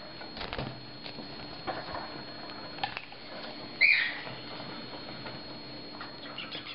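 Masked lovebird (Agapornis personata) chick being hand-fed, giving one short loud call about four seconds in, with faint clicks and rustling of handling around it.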